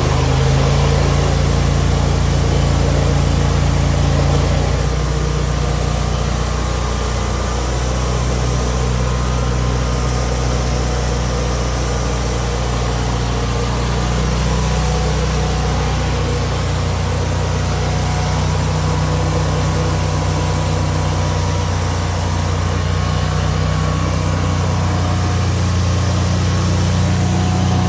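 Stump grinder running. The steady drone of its air-cooled engine drops slightly in pitch about four seconds in and picks up again around halfway.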